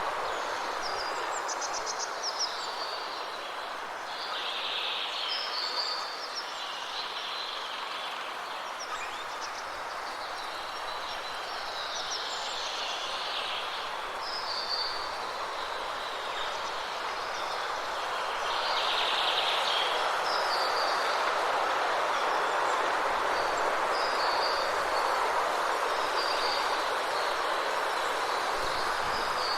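Songbirds chirping and twittering in short, scattered phrases over a steady rushing background noise, which grows a little louder about two-thirds of the way in.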